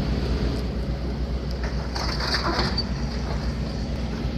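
Tracked excavator's diesel engine running steadily with a low drone, with a brief rasping noise about two seconds in.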